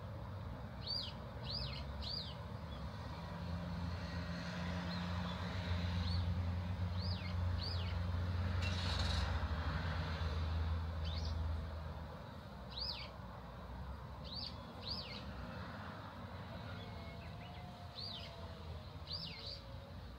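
A road vehicle passes by, its engine and road noise building from about three seconds in and fading after about twelve seconds. Small birds give short, repeated downward-sweeping chirps throughout.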